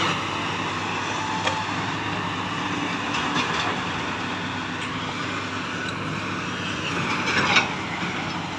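Diesel engine of heavy machinery running steadily, with a few light metal clinks, the loudest near the end.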